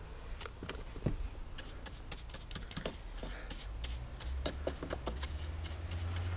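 Paintbrush bristles scratching and stroking over wooden deck boards: a run of quick, irregular scratchy ticks, with a low rumble building in the last couple of seconds.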